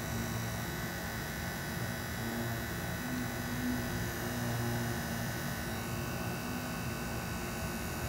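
A steady low hum, with a higher-pitched layer that drops out about six seconds in.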